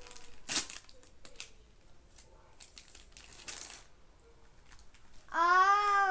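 Plastic wrapping on a LOL Surprise toy ball being crinkled and torn open in short rustling spells. Near the end comes the loudest sound, a child's long drawn-out vocal sound that rises and falls in pitch.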